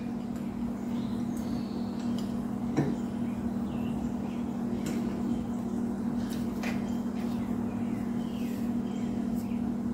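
A steady low hum with a few light clicks and taps, the sharpest about three seconds in, as a quarter-inch stainless steel rod is set and shifted in a cast-iron bench vise.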